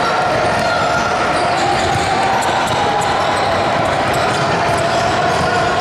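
Basketball game sounds in a gym: a ball bouncing on the court under a steady murmur of voices from players and spectators.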